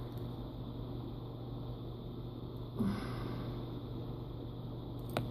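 Quiet small-parts work on a tiny switch with hobby knives: a steady low hum underneath, a short breathy rush about three seconds in, and one sharp small click near the end.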